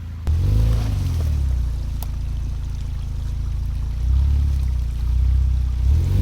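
Engine of an off-road rock crawler running under load, its revs rising and falling in a few surges as it works over an obstacle.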